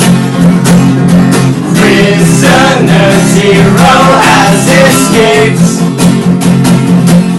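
A band playing a song live: guitar with a voice singing over it, loud and continuous.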